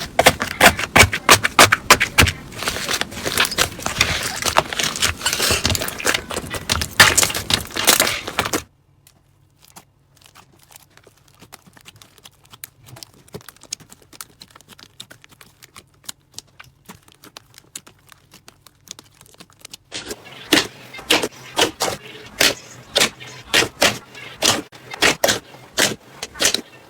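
Slime being squeezed and poked by hand, making rapid crackling and popping clicks. After about nine seconds it drops to faint crackles. Sharper, spaced-out clicks and pops return near the end.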